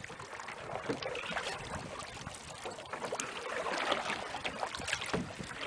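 Canoe being paddled hard: paddle blades dipping and pulling through the water, with an irregular scatter of small splashes and drips.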